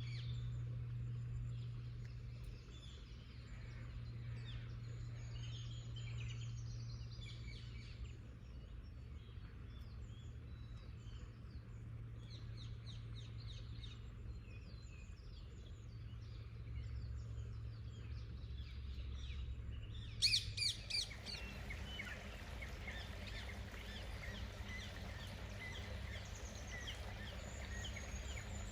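Several songbirds singing, many short chirps and trills, over a steady low hum. About two-thirds of the way through the background changes abruptly with a couple of sharp knocks, and the birds keep singing.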